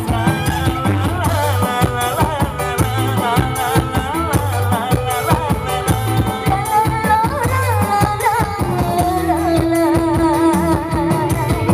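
Live stage music played loud: a singer's wavering, ornamented melody over a band with drums and percussion, on a steady repeating bass beat.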